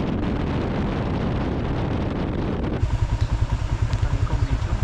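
Strong wind noise buffeting the microphone of a motorcycle riding at road speed, with the motorcycle's engine running underneath. About three seconds in, the sound shifts to a low, fast pulsing.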